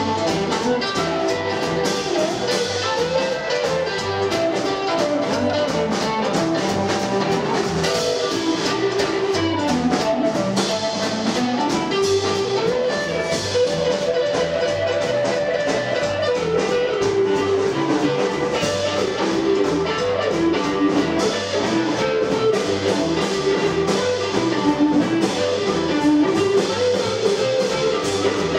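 Live blues band playing an instrumental passage without vocals: electric guitar, upright double bass and drum kit, with a melodic lead line wandering over the rhythm.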